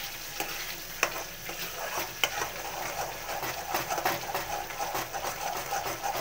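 Ground onion-tomato paste frying in hot oil in a metal kadhai, sizzling steadily while a metal spoon stirs and scrapes through it. Two sharper clinks of the spoon on the pan stand out, about one and two seconds in.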